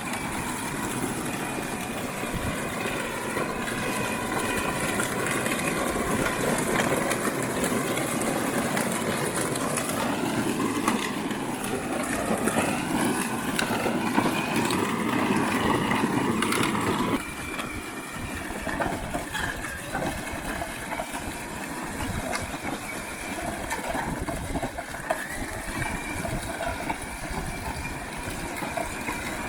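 Child's ride-on tractor driving along, its motor giving a wavering whine over the noise of the wheels rolling on the ground. It gets quieter about seventeen seconds in.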